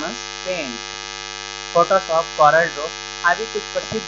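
Steady electrical mains hum and buzz with many evenly spaced overtones, running under a man's voice reading aloud in Hindi.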